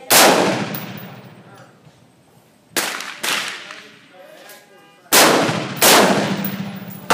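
AR-15 rifle shots, about six in all: a loud one at the start, two quieter ones close together around three seconds, and two loud ones half a second apart after about five seconds. Each shot rings out in a long echo.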